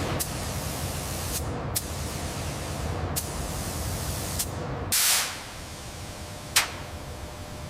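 Steady hissing noise over a low rumble, broken by sharp clicks every second or so. About five seconds in comes a short loud burst of hiss, after which the rumble falls away and one more sharp click follows.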